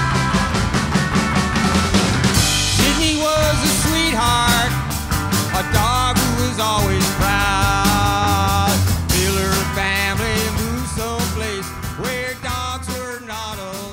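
Rock band playing: electric guitar, electric bass and drum kit, with a man singing lead from about two and a half seconds in.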